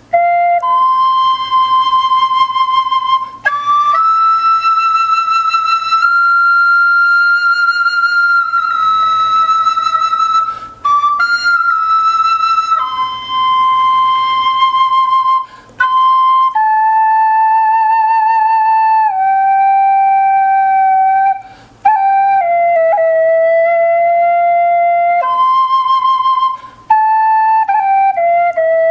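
Wooden svirel (Russian fipple flute) in C major playing a slow melody of long held notes with a clear, pure tone and some vibrato, with brief gaps between phrases.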